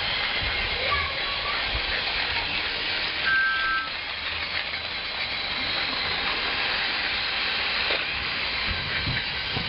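Steady steam-train hiss, with a short whistle toot of two steady notes together about three seconds in.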